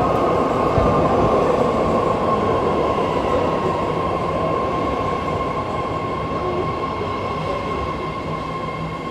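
BART Fleet of the Future train running along the platform, a rumble of wheels with a steady high whine held throughout, slowly fading.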